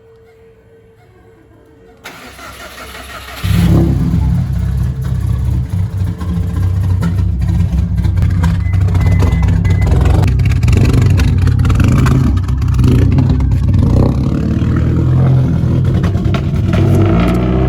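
Car engine running, with music over it. It is faint at first, then turns loud and steady from about three and a half seconds in.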